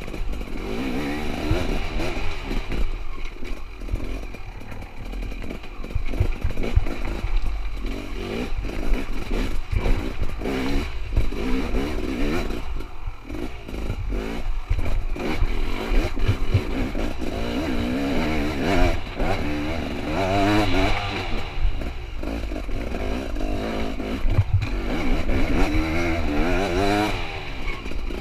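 Hard-enduro motorcycle's two-stroke engine revving up and down hard as it is ridden over rough, rocky trail. Short knocks and rattles come from the bike striking and bouncing over rocks.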